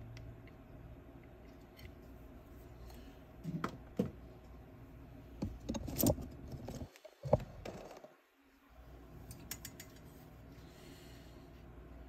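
Light clicks and knocks of small tools being handled on a soldering bench: a couple of sharp taps a few seconds in, then a cluster of clatter near the middle, over a steady low hum.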